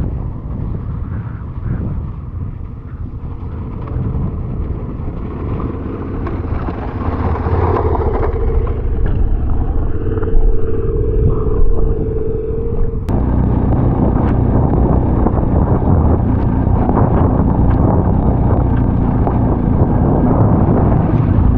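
Adventure motorcycle engine running while riding, with road and wind noise. Around the middle there is a steady whine, and about 13 s in the sound changes abruptly to a fuller, busier engine-and-road noise.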